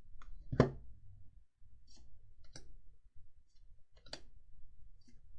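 Magic: The Gathering cards being handled and flipped through: a handful of separate sharp clicks and snaps of card stock, the loudest about half a second in.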